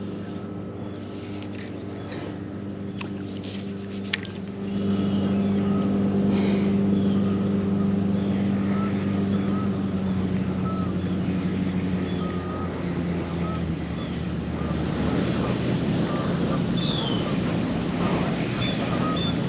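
A boat motor running with a steady hum that steps up louder about four and a half seconds in.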